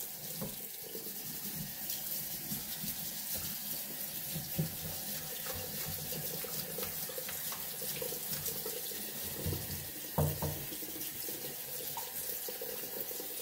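Hot water running from a pull-down kitchen faucet's spray head and splashing into a stainless steel sink, steady throughout. Two brief low bumps come about two-thirds of the way through.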